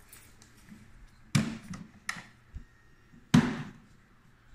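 Hard plastic-and-metal knocks and clicks from the folding handle and body of a Ryobi 40V cordless push lawn mower being handled: two loud clacks about two seconds apart, with lighter clicks between them.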